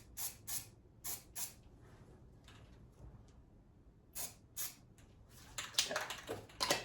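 Aerosol spray-paint can giving short bursts of hiss, in quick pairs, as freshly shaved bare metal is painted against rust. The bursts come closer together and louder near the end.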